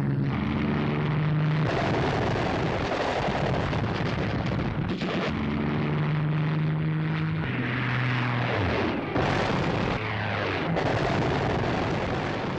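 Piston-engined fighter aircraft droning on an old newsreel soundtrack, with blasts from bombs. About two thirds of the way through, the engine pitch drops as a plane dives past.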